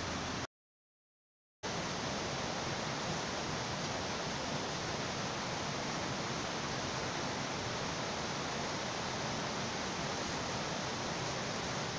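Steady rushing outdoor background noise, even and unbroken apart from a dropout to dead silence lasting about a second near the start.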